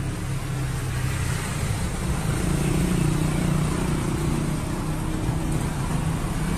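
Street traffic: a motor vehicle's engine running close by, a low hum over road noise that grows louder a couple of seconds in and holds.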